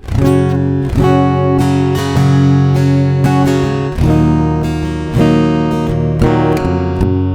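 Giannini SF14 steel-string acoustic guitar strummed in full chords, a fresh strum about every second, heard straight from its built-in pickup and preamp through a mixing desk rather than from a microphone.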